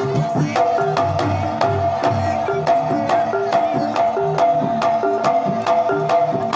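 Banyumasan gamelan playing a tayub piece: quick kendang hand-drum strokes, with deep thuds between about one and two and a half seconds in, over struck saron metallophone notes and a held ringing metal tone.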